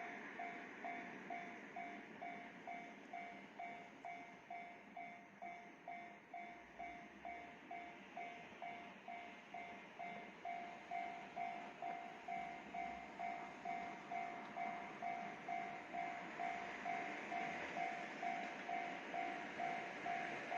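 Japanese level-crossing warning bell ringing steadily, about two electronic dings a second, as a freight train approaches. A rail rumble grows louder under it in the second half.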